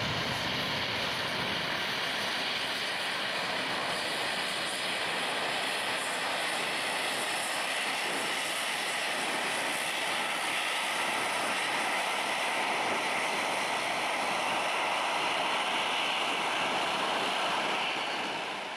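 Boeing 737-300's twin CFM56-3 turbofan engines running loud and steady as the jet rolls along the runway, a continuous roar that fades away at the very end.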